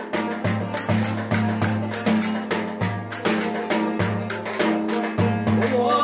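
A many-stringed Turkish banjo of the cümbüş type strummed hard in a brisk, steady dance rhythm, each stroke sharp and jingly over a sustained low ringing.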